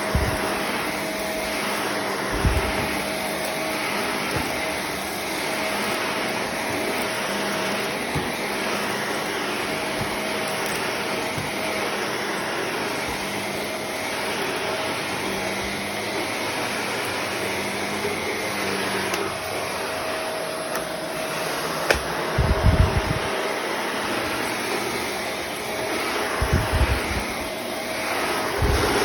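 Shark Navigator Lift-Away Professional upright vacuum (model UV540) running steadily, its sound swelling and easing every second or two as it is pushed back and forth over the floor. A few low thumps come through, one about two and a half seconds in and several near the end.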